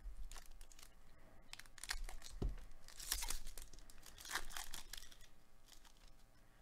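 A 2021 Topps Holiday baseball card pack's foil wrapper being torn open and crinkled by hand, in several crackling bursts, with a soft low bump about two and a half seconds in.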